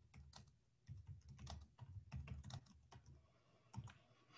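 Typing on a computer keyboard: a quick, irregular run of faint keystrokes.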